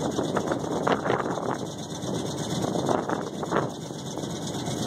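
Wind buffeting the microphone over a Chevrolet 3/4-ton pickup engine running at idle, with a few brief gusts.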